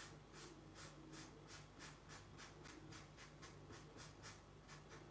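Black marker scratching on paper in quick short strokes, about four a second, faint, as ink lines are hatched into a drawing. A faint steady low hum lies underneath.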